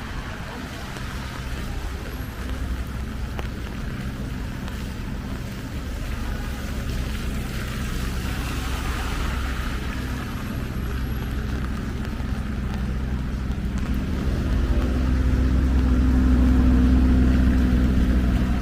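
Steady rain hiss with the low, even hum of a motor vehicle's engine running at a steady speed on the street. The engine grows louder over the last few seconds.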